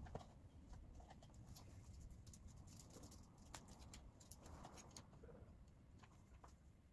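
Near silence: faint room tone with a few scattered light ticks.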